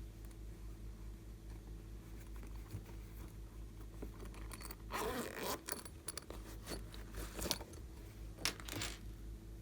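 Hands working slime: a burst of crackling and squishing about five seconds in, then a few shorter crackles near the end, over a steady low hum.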